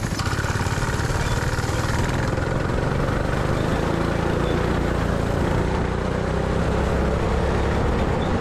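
Small go-kart engine running steadily as the kart is driven round the track, heard from the driver's seat.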